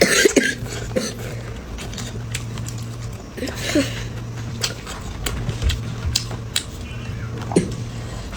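Eating sounds: chewing with scattered clicks and taps of utensils on dishes over a steady low hum. A few short gliding squeaks or whines come through near the start, in the middle and near the end.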